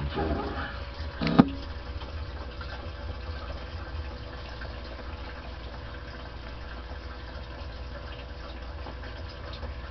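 CB radio static: a steady hiss with a faint hum, broken about a second and a half in by a short burst that ends in a sharp click as a transmission drops.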